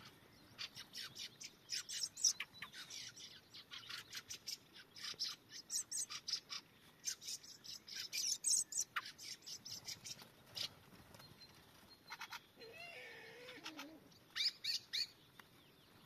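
Thrushes calling: a rapid, dense run of short, high chirps, with a lower, wavering call about twelve to fourteen seconds in and a few more chirps near the end.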